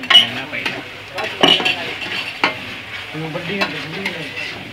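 A spoon scraping and knocking against a frying pan as onion-tomato masala with freshly added spice paste is stirred, the mixture sizzling in the oil. Sharp knocks near the start and about one and a half and two and a half seconds in are the loudest.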